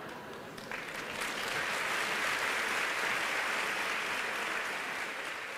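Theatre audience applauding, swelling a little about a second in.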